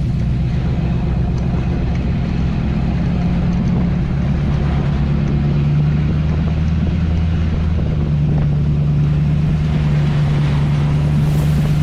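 Heavy diesel engine running steadily with a low, even drone, with some wind on the microphone.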